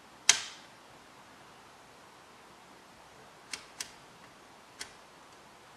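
Sharp metallic clicks from clipping multimeter test leads onto the terminals of a vintage radio chassis: one loud click near the start, two close together a few seconds later, then a fainter one, over a low hiss.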